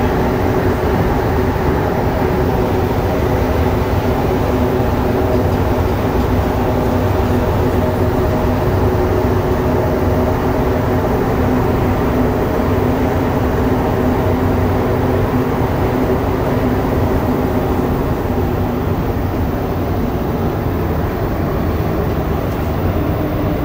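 Cabin noise of a rubber-tyred Montreal Metro Azur (MPM-10) train running at speed: a steady rumble with several steady motor tones held at one pitch. Near the end the train runs alongside a station platform.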